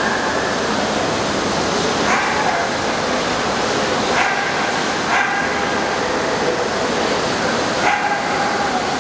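Dogs barking and yelping, about four short pitched calls a few seconds apart, over the steady din of a crowded exhibition hall.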